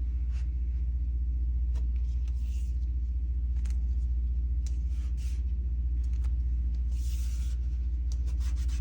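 Steady low hum with scattered light clicks and a brief hissing rustle about seven seconds in.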